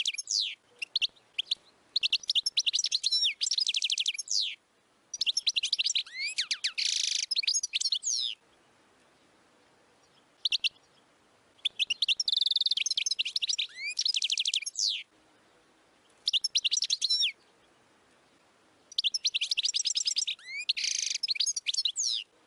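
European goldfinch singing: a run of rapid, twittering and trilled song phrases, each one to three seconds long, broken by short pauses with a few single call notes between them.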